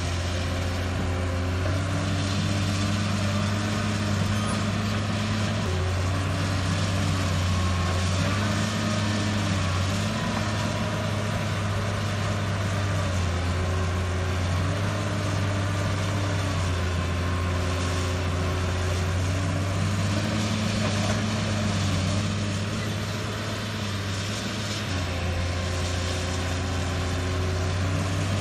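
Caterpillar 320 excavator working: its diesel engine runs steadily, the note shifting up and down every few seconds as the hydraulics take load while it digs, swings and dumps soil into a dump truck.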